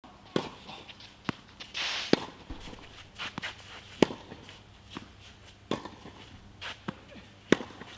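Tennis ball being played on a clay court: sharp racket strikes and ball bounces about once a second, with shoes scuffing on the clay.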